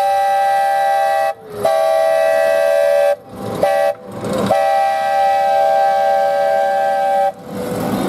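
Train horn sounding a multi-tone chord in four blasts, long, long, short, long: the pattern of the standard grade-crossing signal.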